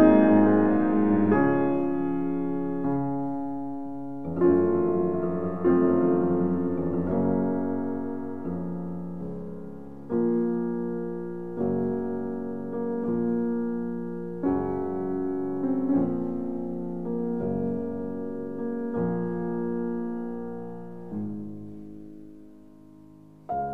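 Background piano music: slow, gentle chords, each struck and left to fade before the next, about every one to three seconds.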